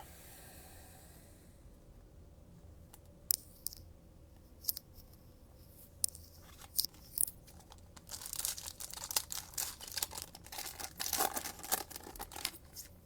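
Foil trading-card pack wrapper being torn open and crinkled by hand. Scattered sharp snaps come first, then a few seconds of dense crinkling and tearing.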